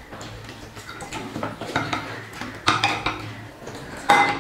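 Tableware clatter: a serving spoon scraping and clinking against steel plates and bowls as curry is served and rice is mixed, four or five separate scrapes and clinks, the sharpest near the end.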